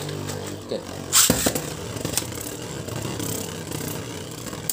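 Beyblade Burst Turbo spinning tops whirring in a plastic Beystadium, a steady hum, with sharp plastic knocks about a second in as the tops strike.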